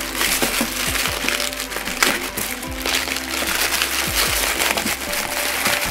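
Black plastic mailer bag crinkling and rustling in the hands as it is handled and pulled open, with many short sharp crackles.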